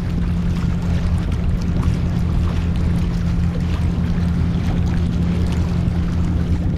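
Steady low drone of an engine running at a constant speed, with faint scattered clicks above it.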